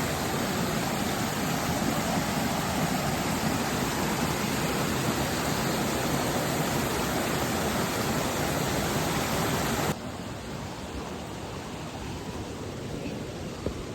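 Waterfall rushing steadily, an even roar of falling water; about ten seconds in it drops suddenly to a quieter, thinner rush.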